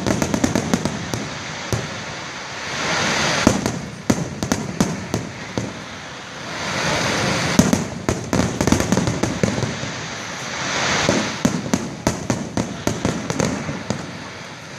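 Fireworks display: volley after volley of shells bursting in sharp bangs and crackles, with swells of hissing noise between the volleys.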